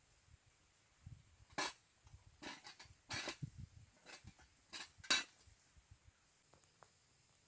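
Metal camping mug and pot being handled at a small fire, clinking and scraping in a handful of short clatters over the first five seconds or so.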